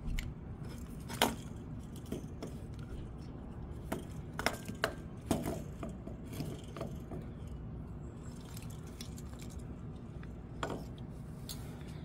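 A handful of light clicks and knocks of metal and plastic parts as a go-kart carburetor is worked loose from its hoses and mount by hand, over a faint steady low background noise.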